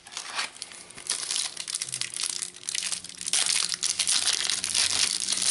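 Foil wrapper of a Topps Mega Match Attax trading card pack crinkling and crackling as it is handled and opened, getting louder about three seconds in.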